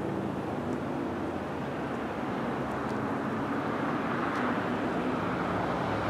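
Steady low rumble of distant engine noise, with a faint hum, swelling slightly in the second half, and a few faint, very short high ticks.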